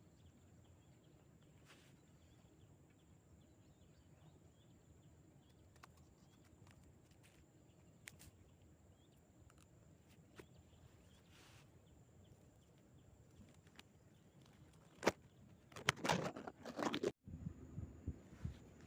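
Quiet outdoor background with a few faint clicks. A sharp click comes near the end, followed by a short burst of clattering handling noise that cuts off abruptly.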